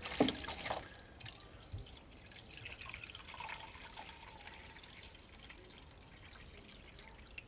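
Water poured in a thin stream from a glass measuring cup into an ultrasonic cleaner's tank of brass cartridge cases, a faint trickling splash that is louder in the first second.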